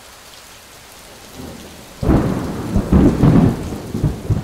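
Steady rain hissing, then a sudden loud roll of thunder about two seconds in that rumbles for a couple of seconds.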